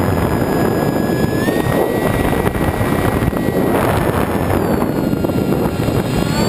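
Electric motor and propeller of an EPP-FPV foam model plane whining as heard from the onboard camera. The pitch rises about a second and a half in, sags around five seconds and climbs again near the end as the throttle changes. Heavy wind and airstream noise buffets the microphone.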